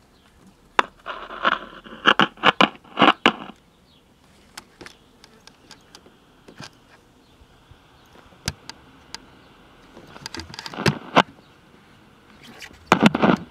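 GE P726 AM transistor radio's speaker putting out only hiss that swells and fades as the volume control is turned, with clicks from the controls and from handling the set. No station comes through while it is tuned, the symptom of a dead receiver front end.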